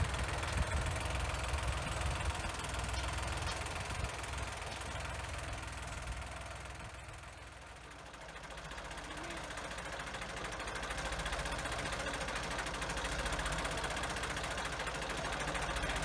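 Ford farm tractor's engine running steadily while its front loader lifts and sets a log. The engine drops quieter for a moment about halfway through, then picks up again.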